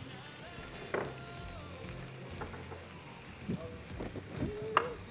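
Niños envueltos (stuffed meat rolls) searing in hot canola oil in frying pans: a steady sizzle, with a few faint clicks and short sounds over it, mostly later on.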